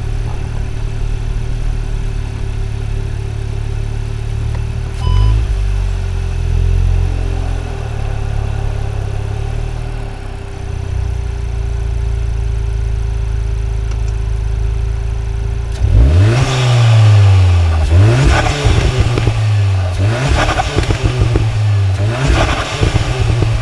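A stage 1 tuned Cupra Ateca's EA888 Gen 3 2.0-litre turbocharged four-cylinder idles steadily, with one short rev about five seconds in. From about two-thirds of the way through it is revved in a run of quick blips, rising and falling, with turbo flutter as the throttle closes, heard through a microphone at the intake.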